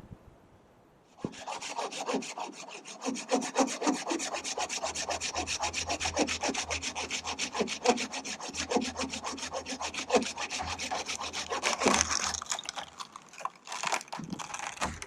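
Hand saw cutting through a dead branch or small trunk with fast, steady back-and-forth strokes, starting about a second in. The sawing stops briefly near the end, then a few more strokes follow.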